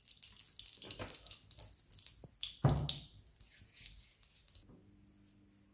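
Cooking oil poured into a hot metal kadai, with fine crackling from the oil, and a single thump about two and a half seconds in; the crackling dies away near the end.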